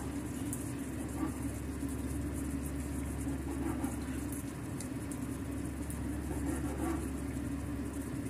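A steady low background hum, with a few soft knife taps on a wooden cutting board as a cooked steak is sliced.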